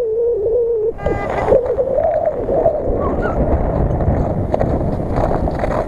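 Mercedes-Benz GL 350 SUV driving over a snowy field, its engine note wavering up and down. From about a second in, wind buffets the microphone with a low rumble.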